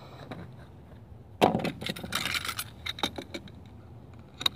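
Sharp clicks and clinks of small hand tools being handled: a mini torch and a utility knife. A loud knock comes about a second and a half in, a quick cluster of clinks follows soon after, and a last click comes near the end.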